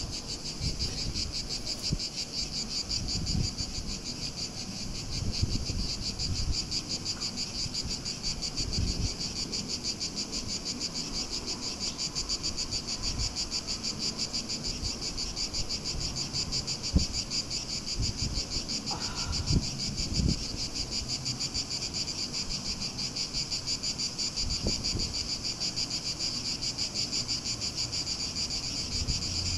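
Cicadas buzzing in a steady, high, finely pulsing drone, with a few low thumps here and there.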